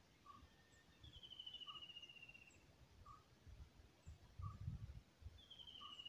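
Faint outdoor ambience with bird calls: a short note repeating about every second and a half, and a falling trill heard twice. Low wind rumble on the microphone.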